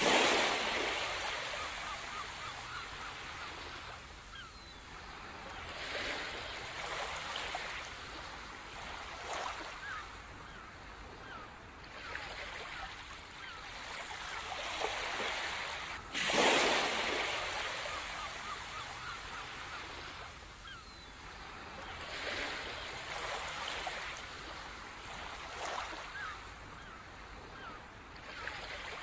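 Ocean surf: waves breaking and washing up a shore in repeated surges every few seconds. The strongest come at the start and about halfway through.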